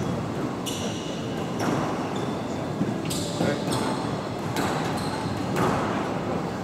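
Squash rally: a squash ball struck by the racquets and hitting the walls, a sharp crack about every second, with rubber shoe soles squeaking on the wooden court floor.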